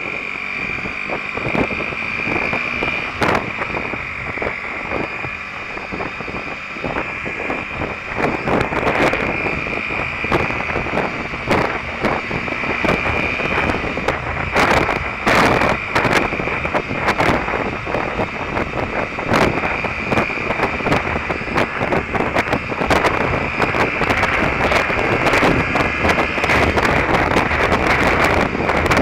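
Derbi Terra Adventure 125 motorcycle's single-cylinder engine running under way, with heavy wind buffeting on the camera microphone. It gets louder from about eight seconds in as the bike gathers speed.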